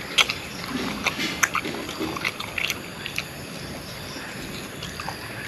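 A person chewing and gnawing on a grilled pork rib close to the microphone: a string of irregular clicks and smacks, most of them in the first three seconds.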